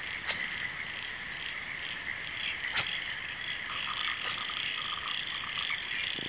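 Night chorus of frogs calling steadily in a high-pitched, dense chorus, with a short run of rapid pulsed calls about four seconds in and a few sharp clicks.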